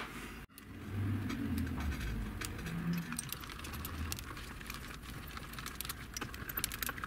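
Light, scattered clicks and clinks of small metal parts handled by hand: the steel cross-slide feed screw and its bracket and aluminium dial being turned and drawn apart, with a few dull bumps in the first half.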